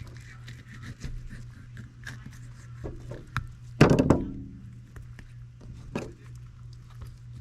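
Small clicks and scrapes of a fillet knife cutting the cheek out of a fish, over a steady low hum. One louder, short sound with a tone to it comes about four seconds in.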